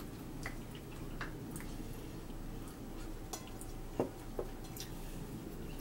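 Quiet eating and tableware sounds: small scattered clicks and taps of a spoon and dishes, with a sharper knock about four seconds in and a second just after.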